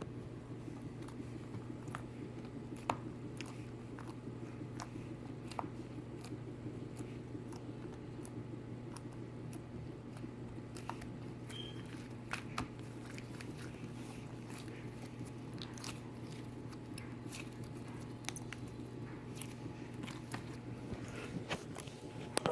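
Pink flarp slime being squished and pressed on a counter, making faint, scattered wet clicks and little squelching pops.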